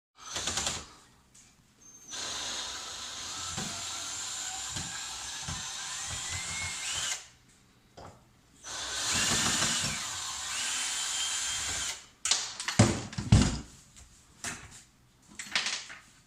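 Power drill running in two long spells with small changes in speed, then a series of sharp knocks and clatters near the end.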